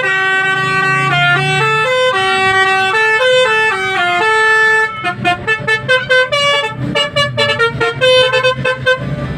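Basuri V3 telolet musical bus horn playing a tune. For about five seconds it plays held notes stepping up and down, then it breaks into a quick run of short toots.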